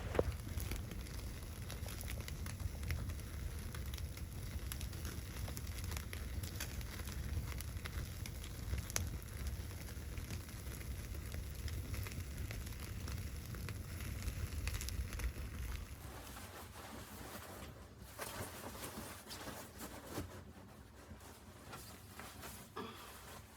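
Wood fire crackling with sharp pops over a low rumble; about two-thirds of the way through this gives way to quieter, scattered clicks and knocks.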